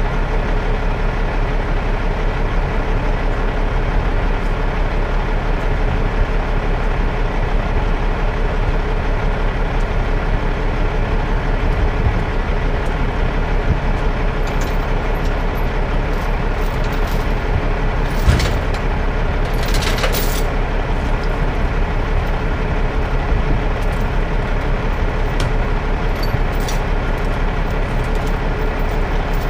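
Peterbilt V100 rotator wrecker's diesel engine running steadily, kept running to power the boom hydraulics during the lift. Two short bursts of noise come about two-thirds of the way through.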